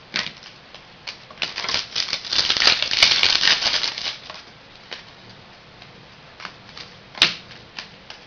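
Trading cards and card-pack wrappers being handled: a dense run of rustling and crackling for a couple of seconds, then a few scattered sharp clicks of card stock.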